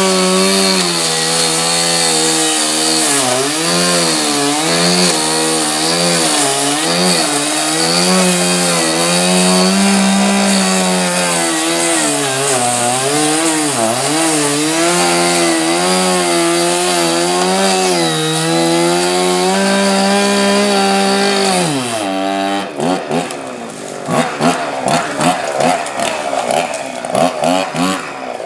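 Two-stroke chainsaw cutting through a bush at full throttle, its pitch dipping and recovering again and again as the chain bogs in the wood. About 22 seconds in the engine note falls away, followed by a run of irregular crackles and knocks.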